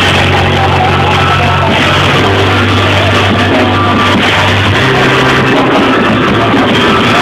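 Loud band music with held bass notes, guitar and drums; the bass note changes about two seconds in and again near five seconds.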